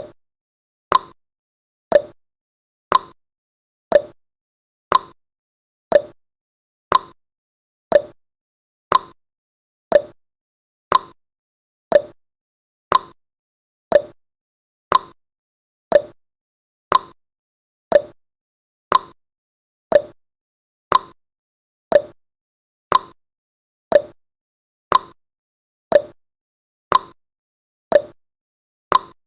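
Countdown timer tick sound effect: one sharp tick each second, alternating slightly higher and lower like a tick-tock, with silence between ticks.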